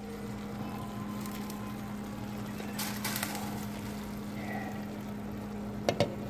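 Rouladen simmering in a stainless pot on the stove, with a steady low hum underneath and a brief swell of hiss about three seconds in as the glass lid is lifted. Near the end the lid clinks twice against the pot rim.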